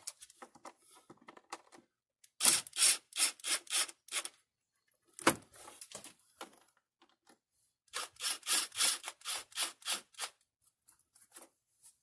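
A DeWalt ratchet on a quarter-inch socket is worked back and forth to loosen the air intake box fasteners. There are two runs of short, sharp strokes, about four or five a second: one starts about two and a half seconds in, the other about eight seconds in, with a single stroke between them.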